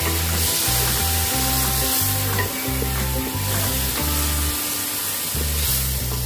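Chopped tomato and onion sizzling in hot oil in a metal pan, stirred and scraped with a wooden spatula while being sautéed, with background music underneath.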